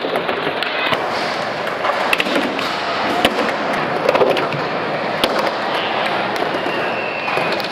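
Skateboard wheels rolling on a smooth concrete floor in a large indoor skatepark hall, with many sharp clacks and knocks of boards scattered through it.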